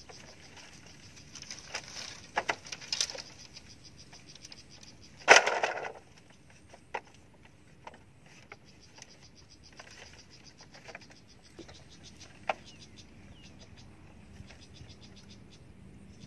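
Dry hollow bamboo poles knocking and clattering against a bamboo-slat floor as they are handled and laid down. There are a few sharp knocks, one louder clatter about five seconds in, then sparse single knocks. Underneath runs a fast, high, steady ticking trill.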